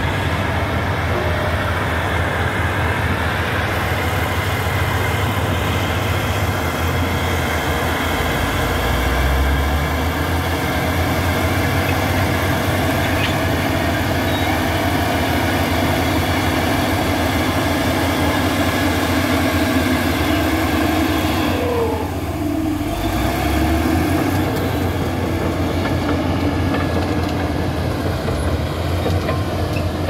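Komatsu D375A crawler bulldozer's big six-cylinder diesel engine running hard under load, with steel tracks clattering, as the blade pushes coal. About two-thirds of the way in the engine sound briefly eases off, then picks up again.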